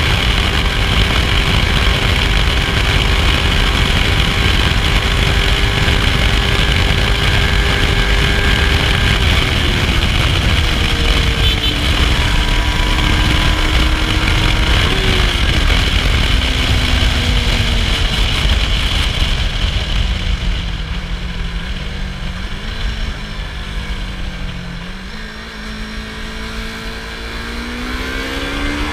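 Yamaha YZF-R25 motorcycle with its stock exhaust; its 249 cc parallel-twin engine runs at a steady high pitch. After about nine seconds the engine note falls in stages as the bike slows, then rises again near the end as it accelerates.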